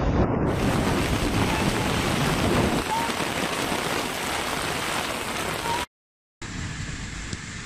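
Heavy rain pouring down, a dense steady hiss. It cuts out for about half a second near six seconds in, then resumes a little quieter.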